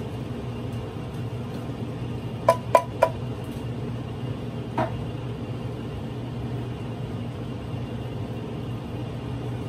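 Three quick ringing metallic knocks on a metal cooking pot about two and a half seconds in, and a softer one about two seconds later, as canned peas are tipped in and stirred. A steady low hum runs underneath.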